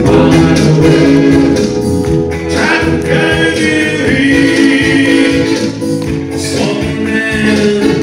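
A man singing a Korean pop song into a handheld microphone over amplified instrumental accompaniment, holding wavering sung notes.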